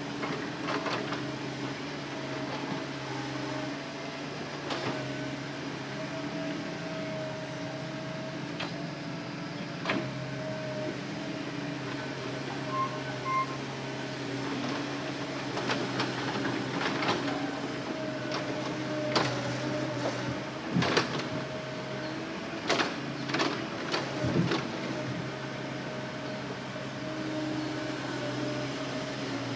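Hitachi Zaxis excavator running steadily under hydraulic load while loading logs, with scattered sharp knocks and clunks, several close together about two-thirds of the way through.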